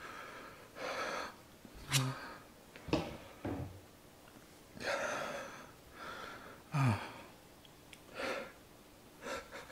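A man breathing hard through an open mouth: a run of sharp gasps and hissing exhales with a couple of short, falling groans, his reaction to the burn of extremely spicy Nuclear Buldak fire noodles.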